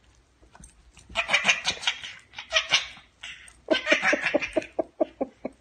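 Toddler laughing: breathy bursts of laughter from about a second in, turning into a quick run of high-pitched 'ha' pulses, about five a second, in the second half.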